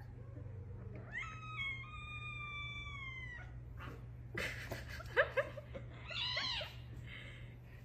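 Young cats vocalising as they play-fight: a long high meow sliding slightly down about a second in, then a brief noisy burst and a few short squeaky cries, and another arching meow around six seconds.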